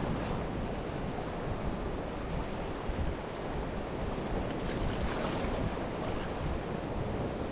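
Sea washing against a rocky shore, a steady rushing with slight swells, with wind buffeting the microphone.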